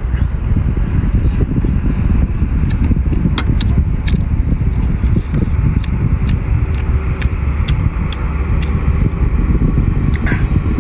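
Close-miked eating: chewing with frequent sharp mouth clicks and smacks over a heavy, steady low rumble.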